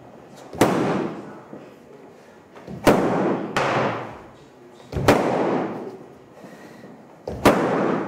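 BlackSwift Raven walking stick, a fiberglass shaft with a polycarbonate ball handle, striking a padded vinyl kick shield five times at uneven intervals. Each sharp smack trails off in room echo.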